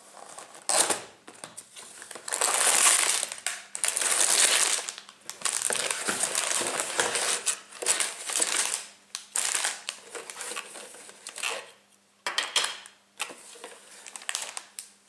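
A cardboard Lego box being opened and emptied: the flap pulled open, then the paper instruction booklet and plastic bags of Lego pieces handled in irregular loud rustling, crinkling bursts, with small plastic pieces clinking in the bags.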